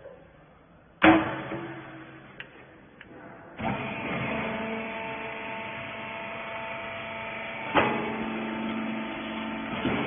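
Hydraulic rag baler: a loud metal clang as the feed lid is shut about a second in, then, about three and a half seconds in, its electric motor and hydraulic pump start and run with a steady hum. A single sharp clunk about eight seconds in.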